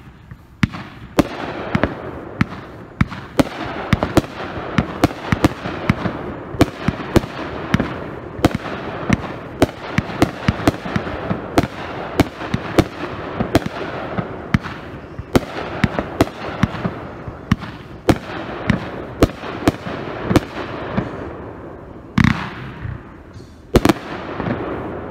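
Multi-shot consumer firework cake ('Wings of Fire') firing a rapid stream of shots, several a second, with crackle between the bursts. Two louder booms come near the end.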